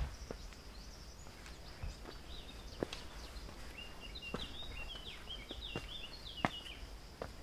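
Footsteps climbing stone steps, a sharp tap or scuff roughly once a second. A small songbird sings a quick run of twittering notes through the middle. A faint, steady high-pitched tone runs underneath.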